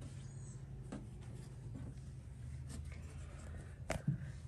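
Fingers pressing and smoothing epoxy putty into a seam in an aluminum boat floor: faint rubbing and scraping, with a sharper click about four seconds in.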